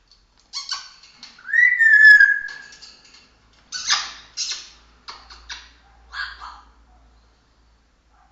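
Pet parrot calling: a loud whistle that rises and then holds steady about a second and a half in, followed by a string of short, harsh, raspy calls.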